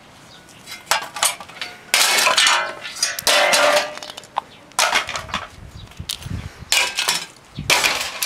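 Scrap metal and plastic appliance parts clattering as they are pulled apart and tossed about, in about seven separate bursts of rattling and clinking.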